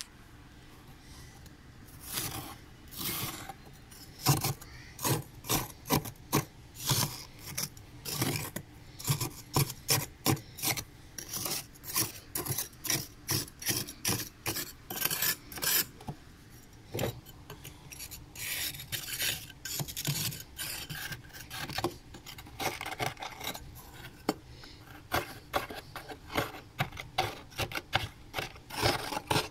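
Flat metal spoon scraping fresh frost off the inside of a freezer: repeated rasping strokes, roughly one to two a second, starting about two seconds in.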